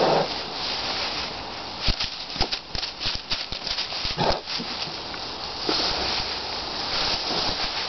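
Straw rustling and crackling under a farrowing sow as she strains and a piglet is born, with sharp clicks and a couple of short low pig grunts about four and six seconds in.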